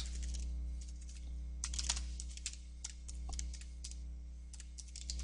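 Typing on a computer keyboard: irregular keystrokes in short runs, with pauses between them, over a steady low electrical hum.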